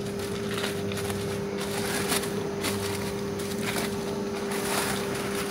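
Paper wrapping rustling and crackling in gloved hands as a new fuel filter element is unwrapped, with a string of short crinkles. Under it runs a steady machine hum.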